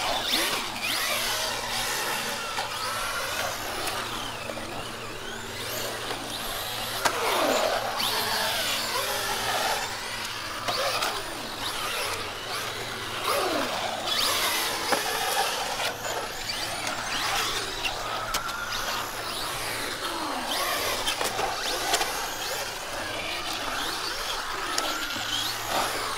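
Electric RC trucks driving around a concrete bowl, their motors whining in pitch sweeps that rise and fall again and again as the throttle is worked.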